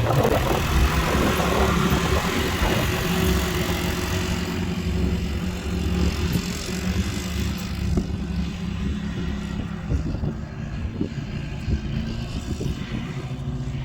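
Quad (ATV) engine running at a steady speed while being ridden, with a rushing hiss over it that is strongest for the first four seconds or so and then fades.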